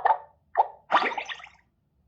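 A Xiaomi 12 Pro phone tone: a quick run of short pitched electronic blips ends just after the start. Two more blips follow, about half a second and a second in, and the last rings out briefly.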